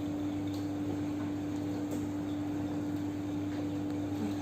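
Steady mechanical hum of laundromat washing machines and dryers running, with a constant mid-pitched tone over a low drone.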